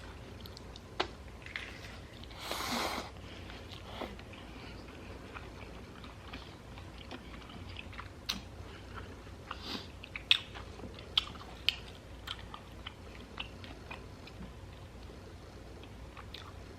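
Close-up chewing and biting of carne asada tacos wrapped in crisp jicama slices, with scattered sharp crunches and mouth clicks. A short rushing noise comes about two and a half seconds in.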